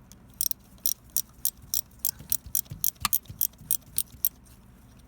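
Ratchet wrench clicking in a steady train of sharp metallic clicks, about three to four a second, while working a broken exhaust manifold bolt out of the cylinder head.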